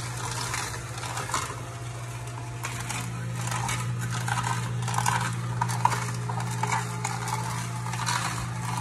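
Omega horizontal masticating juicer running with a steady low motor hum while its auger crushes celery stalks, giving irregular crackling and creaking.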